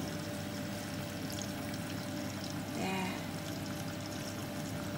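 A large pot of water with rice in it at a rolling boil, bubbling steadily as it is stirred with a silicone spatula, over a faint steady hum.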